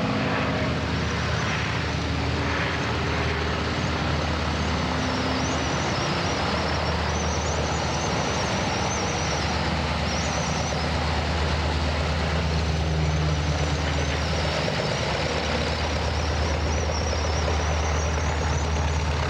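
Piston-engined propeller aircraft running with a steady drone, the engine tones sliding slowly in pitch.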